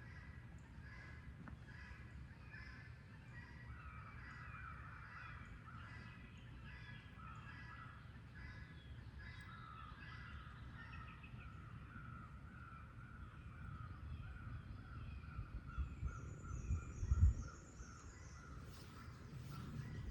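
Birds calling over and over, with a steady low rumble underneath. A few loud bumps come about sixteen to seventeen seconds in.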